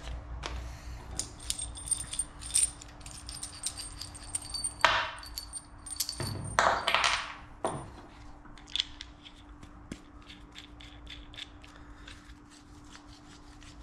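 Johnny Joint rod ends and their nuts clinking against each other and the steel workbench as they are handled, with sharp ringing metal clicks, and a rustle twice in the middle. The clicks grow fainter and sparser about two-thirds of the way through.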